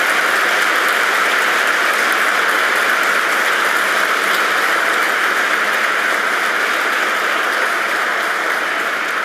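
A large seated audience applauding steadily, the clapping beginning to thin out near the end.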